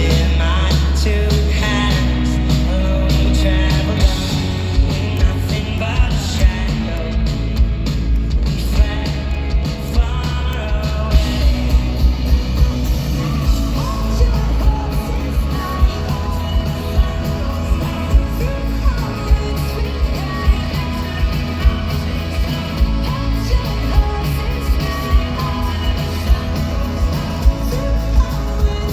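Live indie-folk rock band playing through an arena PA, with singing over a steady bass line. A sustained low bass opens, and a regular, driving drum beat comes in about four seconds in.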